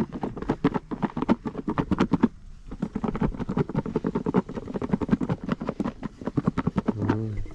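Rapid clattering, about ten short knocks a second, with a brief pause about two and a half seconds in.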